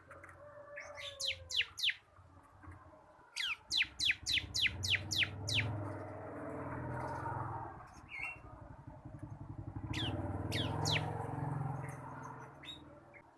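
Bar-winged prinia (ciblek) singing: quick trains of sharp, high notes that each drop steeply in pitch, in three bursts, the middle one the longest at about eight notes. A low rumble swells and fades under the middle of the song.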